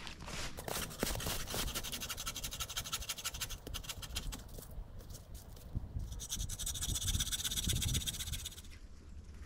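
Hand saw rasping through a branch of a fallen tree in repeated strokes, going quiet near the end.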